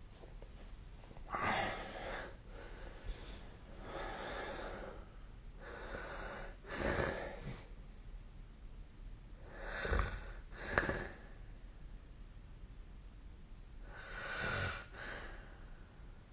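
A sleeping person snoring and breathing noisily: a string of separate, irregular breaths, with a sharp pair close together about ten seconds in.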